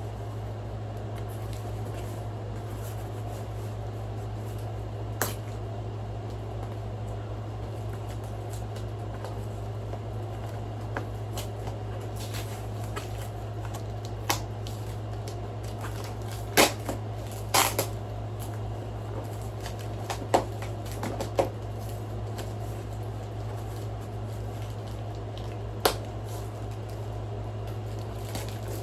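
Steady low electrical hum, with scattered sharp clicks and taps of a box and its packaging being handled, most of them in the middle stretch.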